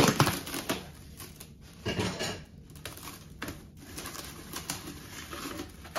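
Plastic stretch wrap crinkling and rustling as it is pulled off the roll and pressed down around a toilet seat, in several short irregular bursts, the loudest right at the start.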